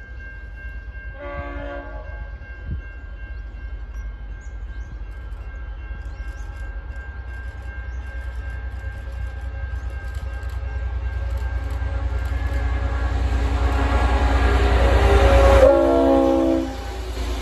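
Diesel locomotive approaching and passing close: a short multi-note horn blast about a second in, then engine and wheel rumble building steadily, and a second, louder horn blast as it goes by near the end, dropping in pitch as it passes. The rumble cuts down sharply just after the horn.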